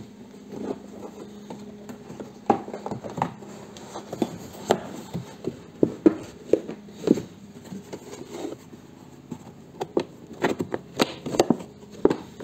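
Handling noise from the car's rear interior trim: irregular knocks, clicks and rustling as the old carpet lining is worked loose and lifted out.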